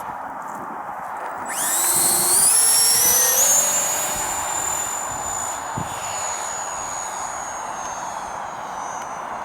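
Twin 70 mm 12-blade electric ducted fans of a model Me 262 jet spooling up about one and a half seconds in: a high whine rises quickly in pitch, then holds steady at high power and slowly fades, over a steady rushing noise.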